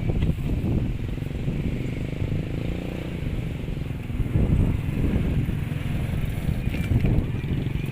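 Motocross dirt bike engines running on a practice track. The sound eases after the start and grows louder again from about four seconds in.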